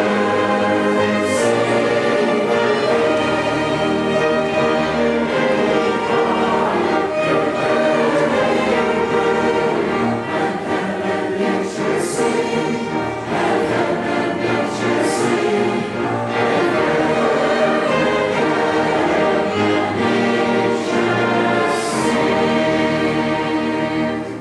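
A choir singing with orchestral accompaniment.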